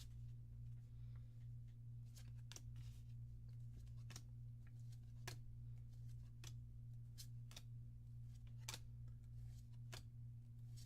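Trading cards from a freshly opened booster pack being flipped through by hand: faint, soft clicks about once a second over a steady low hum.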